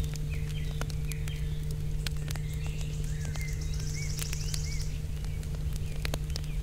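Small fire crackling with irregular sharp pops as the fire cake burns under a foil-covered pot, over a steady low hum. Birds chirp in the background, with a short high trill about four seconds in.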